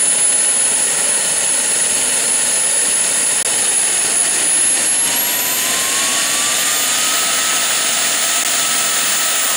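Model jet turbine running with a steady rushing noise and a high whine. About five seconds in, the whine rises in pitch as the turbine spools up, then holds at the higher pitch.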